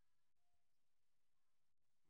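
Near silence: faint steady hiss of the recording.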